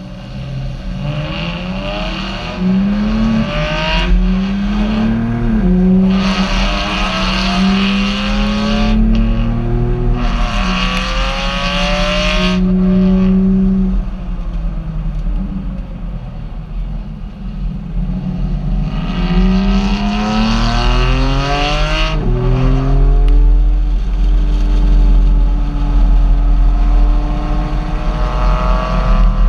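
Car engine under way, its pitch climbing and then dropping several times as it accelerates and changes gear, over a steady low road rumble.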